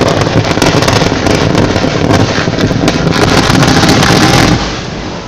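Open-pit coal mine blast: a row of blast holes detonating in quick succession, a loud continuous rumble packed with sharp cracks. It drops away about four and a half seconds in to a lower, fading rumble.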